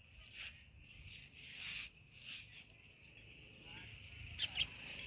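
Steel spatula scraping and turning chicken pieces in an iron wok: a few short scrapes, the loudest two close together near the end, over a faint steady high hiss.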